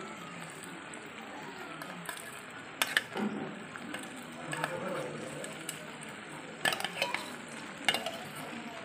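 Fried paneer cubes sliding from a steel bowl into a wok of curry over a steady sizzle of frying, with sharp clinks of the spatula and bowl about three seconds in and again twice near the end.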